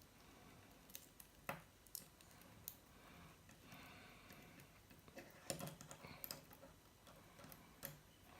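Faint, scattered clicks and taps of the Leatherman Tread bracelet's metal links and screws being handled while it is put back together, two of them a little louder, about a second and a half in and halfway through.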